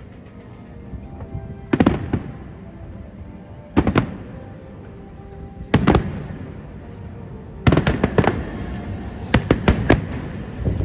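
Fireworks bursting over background music. Single bangs come about every two seconds, then quicker clusters of several bangs in the last few seconds.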